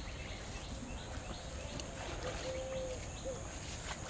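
Countryside ambience: a steady high insect drone with small birds chirping, and a low call of a short note, a longer held note and another short note, about two and a half seconds in. A couple of faint clicks are heard in between.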